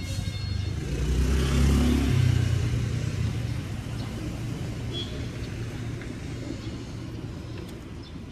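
A car's engine close by, as the car drives along the street. Its low rumble grows loudest about two seconds in, then slowly fades away.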